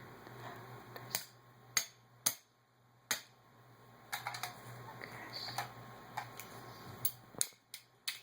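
A series of sharp, irregular clicks and taps, about ten in all, some close together near the end, over a faint steady low hum.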